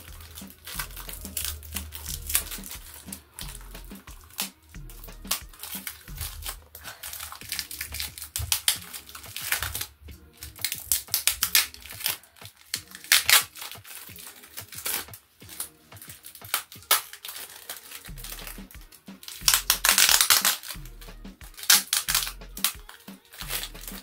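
Clear plastic bag crinkling and rustling in short, sharp crackles as it is worked off a potted plant by hand.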